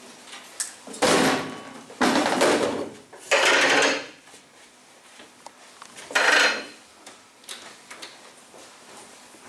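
A metal-legged plastic classroom chair and a table being thrown and shoved about, crashing and scraping on the floor. Three loud clattering bursts come in quick succession in the first four seconds, and one more a little after six seconds.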